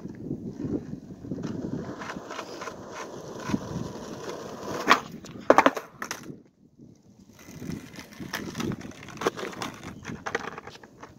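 Skateboard wheels rolling on asphalt, then a cluster of sharp cracks and clatters about five seconds in as the board is popped and hits the pavement on an attempted backside heelflip that isn't landed. After a short lull, rolling noise and scattered clicks come back.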